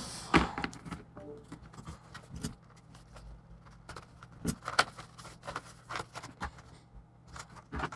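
Scattered light clicks and taps of hands handling parts and small tools inside an open laptop, irregular and spread throughout.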